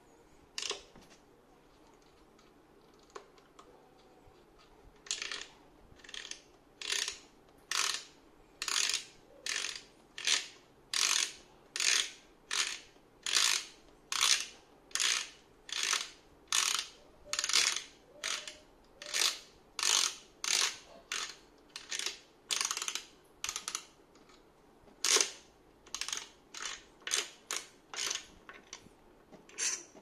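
Metal rasping of the Raccea 019 flat-burr grinder's threaded burr carrier (grind-adjustment collar) being unscrewed by hand. It comes as a long run of short, even strokes about once a second, with a brief pause shortly before the end and then a few more strokes.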